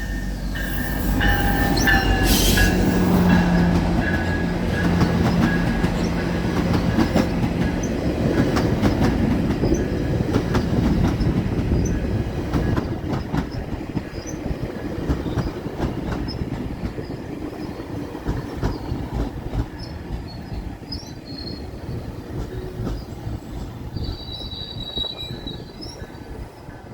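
GO Transit commuter train with diesel locomotive 609 rolling in on the tracks, its engine and wheels loud at first and fading steadily as it slows. A few brief high-pitched wheel squeals come near the end.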